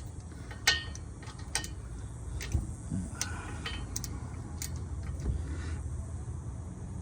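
Scattered metallic clicks and clinks of a wrench working on the bolts at the driveshaft's U-joint under the car, over a low steady background hum.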